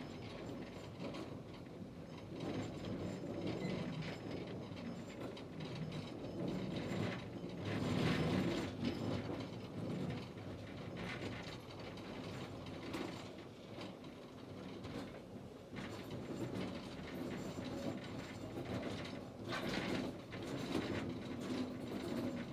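Prussian steam locomotive rolling slowly along the track: continuous rattling and clanking of its running gear and wheels on the rails, louder about eight seconds in and again near the end.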